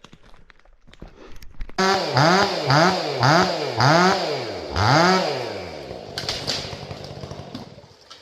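Stihl 500i two-stroke chainsaw engine blipped up and down about five times in quick succession, then left running more steadily and fading off. A few light clicks come before it.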